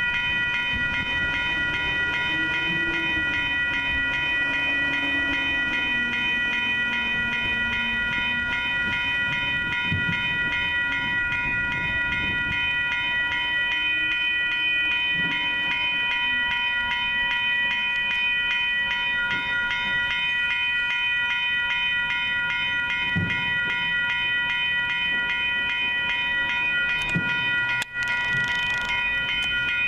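Railroad grade crossing warning bell ringing continuously, a rapid evenly repeated ding, over a low rumble of traffic.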